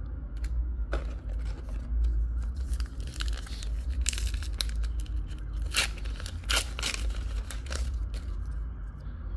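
Foil booster-pack wrapper being torn open and crinkled by hand, an irregular run of crackles that is busiest in the middle, over a steady low hum.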